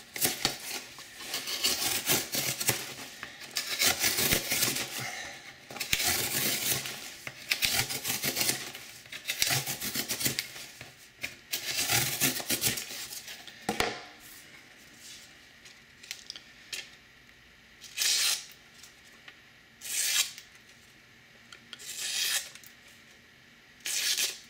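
A Maxamet-steel Spyderco Mule Team knife slicing through corrugated cardboard in long rasping strokes, about one every two seconds. After about 14 s it changes to shorter, separate swishes every two seconds as the blade slices newsprint to check how sharp the edge still is.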